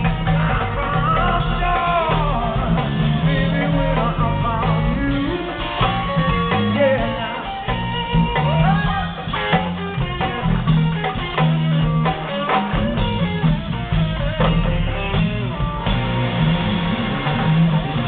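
Live band playing on stage: electric guitar, keyboard, congas and drum kit over a moving bass line, with a voice singing the melody.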